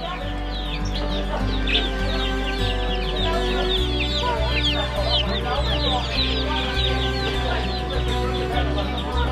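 Many small birds chirping and peeping at once, a dense stream of short, high, downward chirps, over background music with a low bass line.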